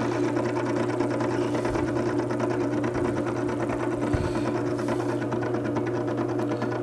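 Makita 98202 horizontal-wheel wet blade sharpener running steadily: its small motor hums and the spinning stone wheel gives a fast, even rattle.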